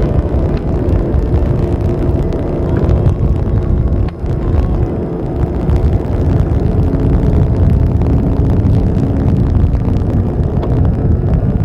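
Steady low rumble with a droning hum on old VHS camcorder audio, briefly dipping about four seconds in.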